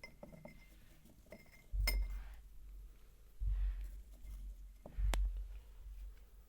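Light clinks of glass with a short ring, a sharp click about two seconds in and another about five seconds in, over dull low thumps roughly every one and a half seconds.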